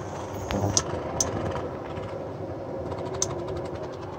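Shakshuka's tomato sauce sizzling and bubbling in a frying pan covered with an upside-down plate, with a few sharp spattering pops.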